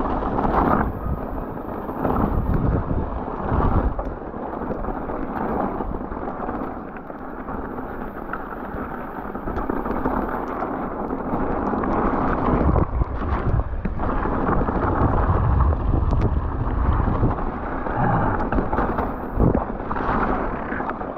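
Mountain-bike ride heard through the rider's camera: heavy wind rumble on the microphone, with scattered knocks and rattles from the bike over rough trail.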